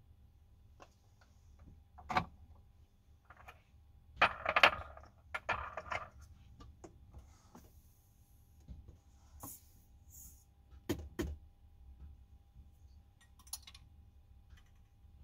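Small metal objects handled at a reloading bench, brass cartridges and tools picked up and set down: scattered clicks and knocks, with a short metallic rattle about four seconds in that is the loudest part.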